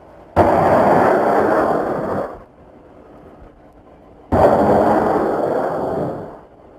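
Two loud blasts about four seconds apart. Each hits suddenly and rumbles for about two seconds before fading: explosions from an AH-64 Apache strike on ground targets.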